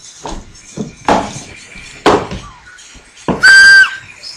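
Two short knocks, then a toy whistle blown hard in one loud, steady blast that overloads the recording about three seconds in.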